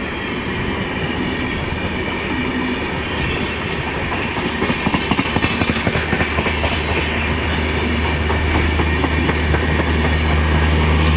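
Passenger train running past, its wheels clattering over the rail joints most sharply about halfway through. After that a steady low engine hum builds and grows louder toward the end.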